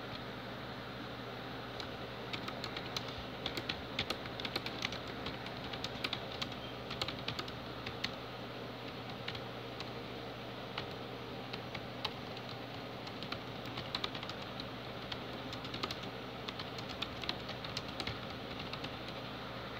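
Fast typing on a computer keyboard: irregular runs of key clicks that start about two seconds in and stop near the end, over a steady low hum.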